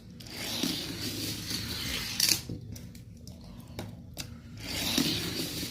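Light clicking, scraping and rattling of small die-cast toy cars being handled, with a couple of sharper ticks.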